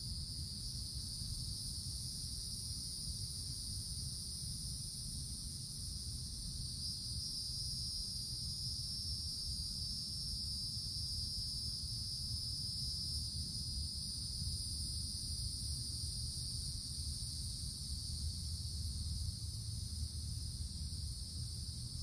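A chorus of cicadas buzzing in a continuous high drone, swelling a little about a third of the way in and easing back later. A steady low rumble runs underneath.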